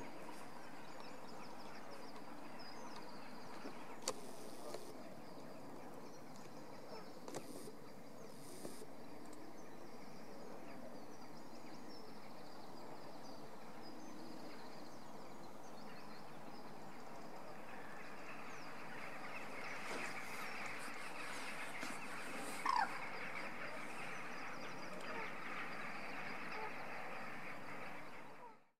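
A steady wash of many distant birds calling, thickening over the second half, with one louder sharp call about two-thirds through. A few brief knocks sound in the first ten seconds, and the sound fades out at the end.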